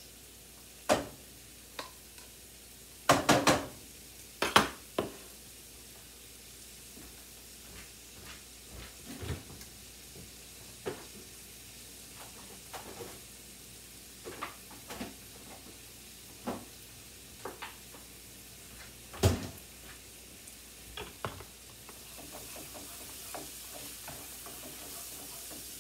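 Diced onions and garlic sautéing in a frying pan on a gas stove: a faint steady sizzle broken by sharp clicks and knocks of a spoon and jar against the pans, the loudest a few seconds in and about two-thirds of the way through. Near the end the sizzle grows louder as the pan is stirred with a spatula.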